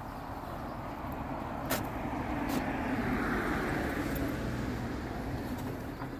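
A car passing on the street, its sound swelling to a peak around the middle and fading away. A couple of short sharp clicks about two seconds in come from a shovel chipping at packed snow.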